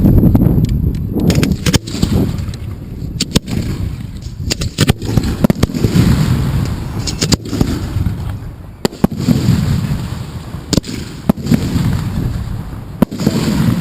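Aerial fireworks shells of a display going off close by: repeated sharp reports and booms, several in quick succession, over a continuous low rumble.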